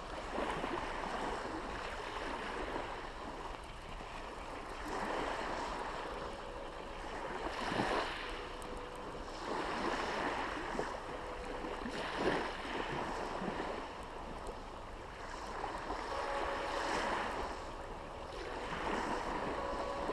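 Small waves breaking and washing onto a beach, swelling and fading every few seconds.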